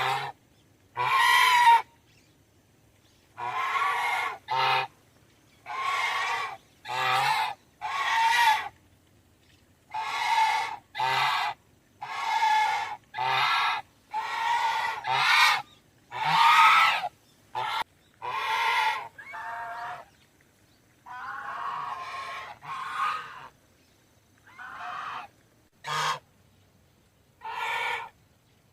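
Goose honking: a long series of separate honks, each under a second, with short silences between them.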